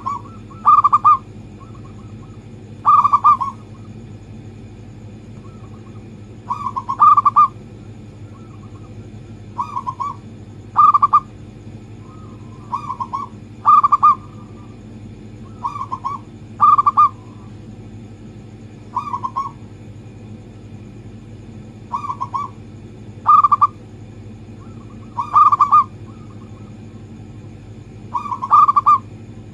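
Zebra dove (local perkutut) cooing: short, clipped phrases repeated every two to three seconds, over a steady low hum. It is a lure recording meant to set caged perkutut singing.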